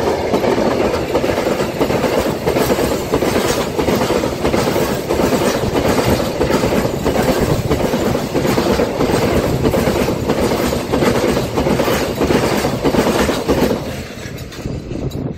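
Freight train passing close by, headed by a Korail diesel locomotive and followed by a long string of open freight wagons. The wagon wheels clack rhythmically over the rail joints. The sound drops off sharply about 14 seconds in as the last wagon goes by.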